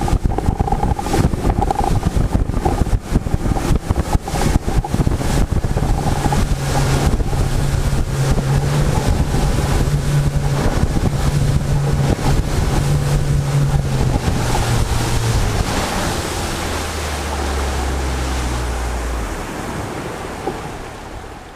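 Fishing boat running on open water: a steady motor drone under wind buffeting the microphone and rapid slaps of water on the hull. About two-thirds through, the motor note drops lower, and the whole sound eases off near the end as the boat slows.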